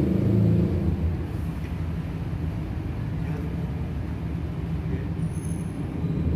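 Steady low rumble and hum of a CNC milling machine running in a workshop, a little louder in the first second.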